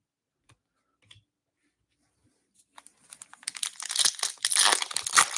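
Foil wrapper of a 2021-22 Upper Deck Series 2 retail hockey card pack being torn open and crinkled by hand. It is almost silent at first, and the crinkling starts about three seconds in and runs on.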